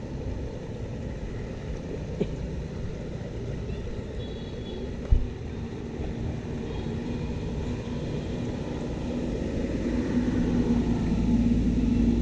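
Muddy rainwater rushing out of a culvert into a ditch, a steady low rumble that grows louder near the end. A single knock sounds about five seconds in.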